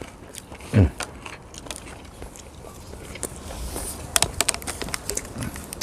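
Eating sounds at a table: crunching, chewing and scattered clicks, with a denser run of clicks about four seconds in. Just under a second in comes one short vocal sound that falls in pitch.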